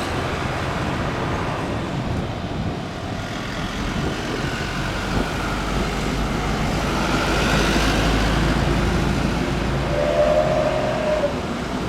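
Jet airliner engines passing, a deep rumble with a thin whine that swells to its loudest about two-thirds of the way through.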